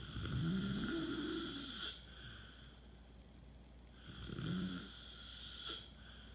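A man snoring in his sleep: two long snores, each nearly two seconds, about four seconds apart.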